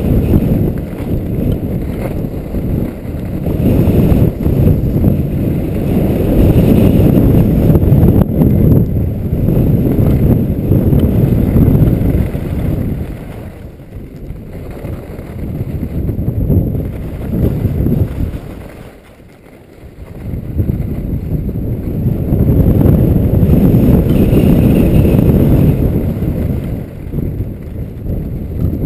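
Wind buffeting the microphone of a camera on a downhill skier: a loud low rumble that rises and falls. It dies down for a second or two about two-thirds of the way in.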